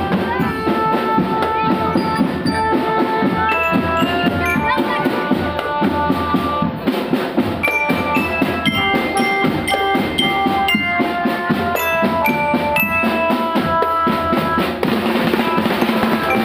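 Primary-school marching drum band playing: snare and bass drums beating a busy rhythm under a melody of held notes.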